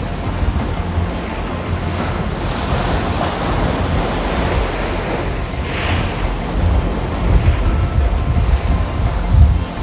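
Sea surf breaking and washing on a rocky shore, with one wave rushing in about six seconds in. Strong wind buffets the microphone as a low rumble, gusting hardest near the end.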